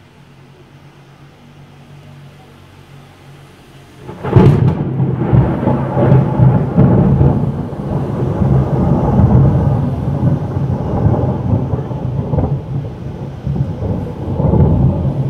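Close thunder: a sudden sharp crack of a nearby lightning strike about four seconds in, followed by a long, loud rolling rumble that swells again near the end.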